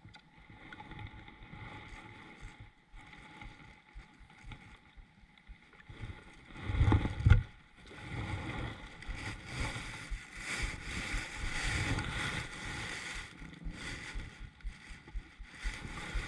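Handling noise aboard a kayak: rustling and knocks, with one heavy thump about seven seconds in.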